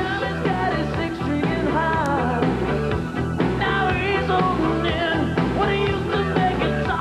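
Rock song: a lead singer over electric guitar, bass and drums, with a steady beat.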